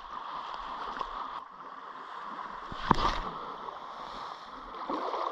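Shoreline ambience: small waves lapping at the water's edge under a steady hiss of outdoor noise, with one sharp click a little before three seconds in.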